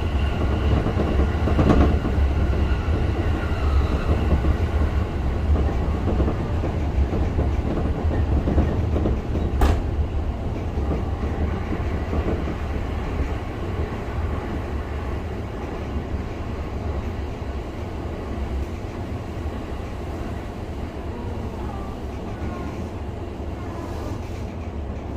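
E233-2000 series electric commuter train running, heard from inside its driving trailer car: a steady rumble of wheels on rail with faint motor tones. There is a sharp click about ten seconds in, and the running noise eases off gradually as the train slows for the next station.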